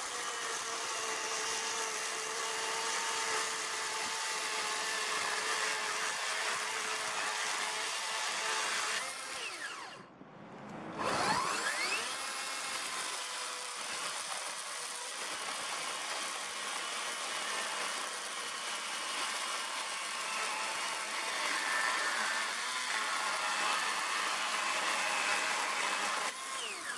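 Greenworks Pro 60V 18-inch brushless battery chainsaw cutting through a pressure-treated 6x6 post, a steady electric motor whine under load. About ten seconds in the motor stops briefly, then spins up with a rising whine and runs steadily through a second cut that ends near the end.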